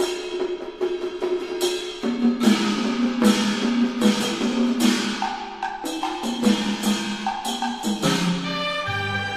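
Instrumental background music: sharp, wood-block-like struck notes at an uneven beat over a steady pitched melody. Near the end the strikes give way to held notes and a low bass line.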